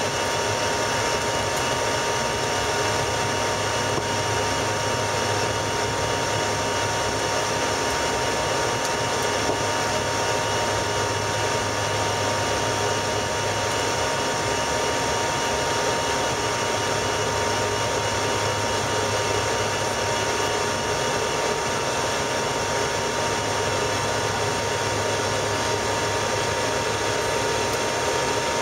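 Steady cabin noise of a Bombardier CRJ-200 climbing through cloud after take-off: the rush of its rear-mounted General Electric CF34 turbofans and the airflow, with a thin steady whine over a low hum.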